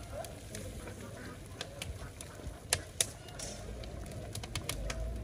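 Scattered, irregular sharp crackles and ticks from a large wood-fired cooking cauldron, over a faint background hum.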